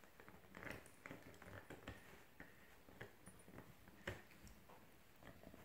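Miniature pinscher gnawing on a hard chew stick: faint, irregular clicks and scrapes of teeth on the chew, with one sharper click about four seconds in.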